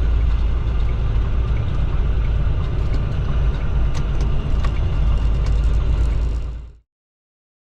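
Steady low rumble of vehicle traffic with a few light clicks, fading out sharply into complete silence near the end.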